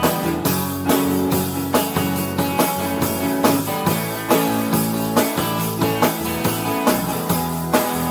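Live band playing an instrumental passage on electric guitar, acoustic guitar and drum kit, with a steady beat and no singing.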